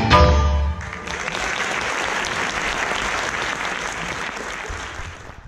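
The last notes of a piece of music end about a second in, and an audience applauds. The applause fades slightly and cuts off abruptly at the end.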